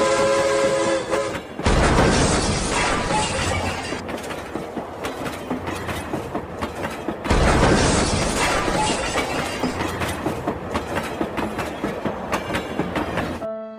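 Recorded train sound effect: a held horn chord that stops about a second and a half in, then a rattling clickety-clack running noise that starts suddenly and starts over again about halfway through.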